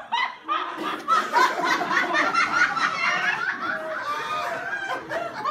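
Theatre audience laughing, many voices at once, getting louder about a second in.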